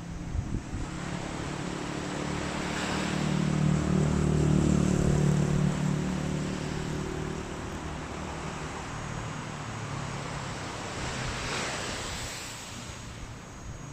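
An engine's low hum passes by over waves washing on the beach, growing louder to a peak about four to six seconds in, then fading away by about eleven seconds.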